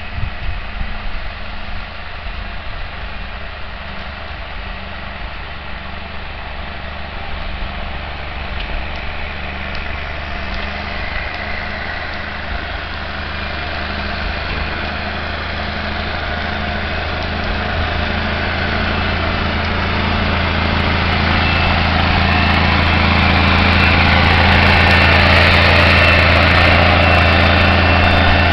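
International Paystar 5000 plow truck's diesel engine running steadily as the truck approaches, getting louder and peaking about 25 seconds in. A rushing noise grows alongside it as the truck draws close, with the wing plow down.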